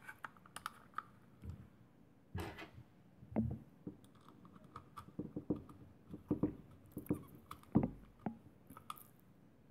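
Faint, irregular clicks and taps of an Allen key and a screw against a hard plastic holster and its attachment plate, with a couple of short rustling scrapes, as the screw is driven in by hand.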